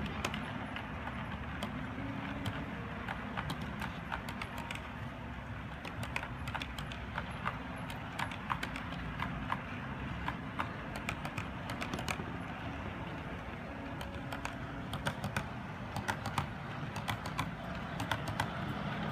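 O scale model freight cars rolling past on two-rail track: a steady low rumble of metal wheels on the rails with many irregular sharp clicks as the wheels cross the track.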